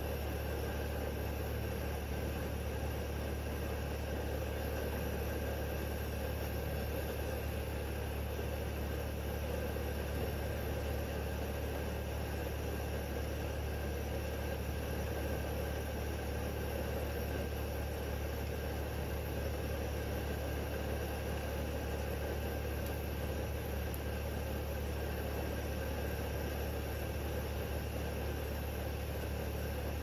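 Pan of ramen broth simmering on a camping stove: a steady hiss with bubbling over a constant low hum that does not change.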